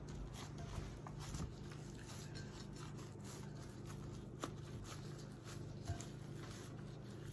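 Faint rustling of disposable plastic gloves and soft squishing of the salmon loaf mixture as it is pressed into a ceramic baking dish, with a few small clicks, over a steady low hum.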